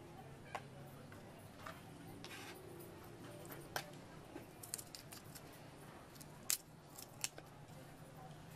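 Raw shrimp being peeled by hand: an irregular scatter of sharp clicks and crackles as shells and heads are snapped off, the loudest about six and a half seconds in, over a faint low hum.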